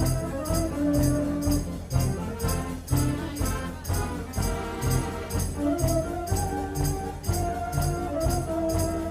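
A Decap dance organ playing a tune with a steady beat: drum and cymbal strokes under sustained organ melody notes.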